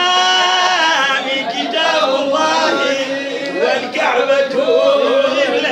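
Men's voices chanting an unaccompanied religious praise song for the Prophet, in long, held, wavering notes.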